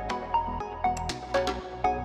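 Background music with a steady beat, about two beats a second, over short melodic notes.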